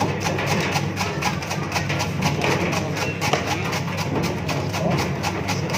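Porang (konjac) slicing machine running: a steady motor hum under rapid, irregular clicking and clattering.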